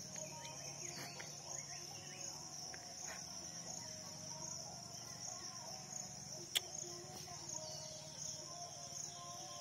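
Steady, high-pitched chorus of insects, crickets or cicadas, with a single sharp click about six and a half seconds in.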